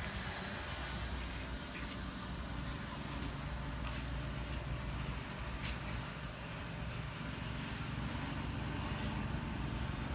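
Steady low rumble of engines and machinery at a construction site, with a few sharp knocks or clicks about two, four and six seconds in.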